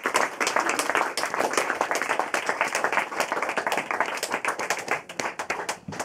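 Audience applause, many people clapping in a small room, thinning out and dying away near the end.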